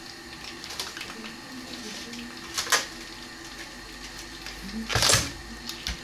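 Refrigerator handled while an egg carton is taken out: a brief double knock of things moved inside about two and a half seconds in, then the door pushed shut about five seconds in, the loudest thump.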